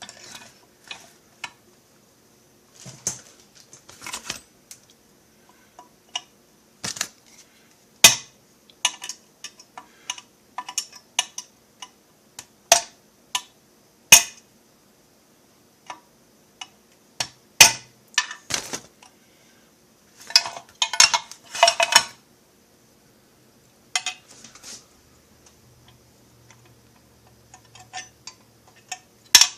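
Small metal tools and parts clinking and knocking on a workbench while a chainsaw crankcase is assembled by hand: irregular sharp clicks with a short rattling cluster about two-thirds of the way through.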